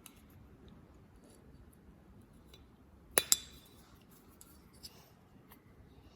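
Faint small ticks of handling, then a sharp double metallic click with a brief ring about three seconds in: a tool working at the exhaust gasket seated in the CRF450R cylinder head's exhaust port.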